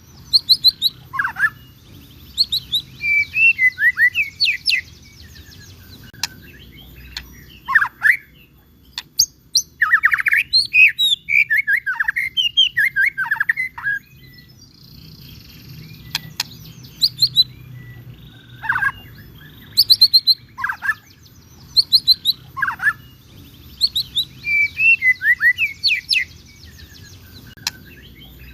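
White-rumped shama (murai batu) singing vigorously: fast, varied phrases of whistles, sweeps and rapid trills, each a second or a few seconds long, with short pauses between them.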